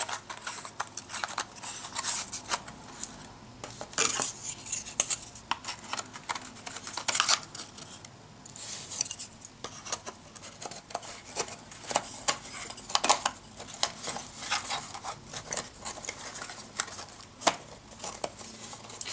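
Thin, unglued wooden box panels with finger joints clicking and scraping against each other as they are fitted together by hand, in many irregular light knocks.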